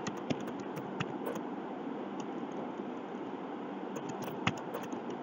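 Scattered keystrokes on a computer keyboard: a few separate clicks, one slightly louder near the end, over a steady hiss.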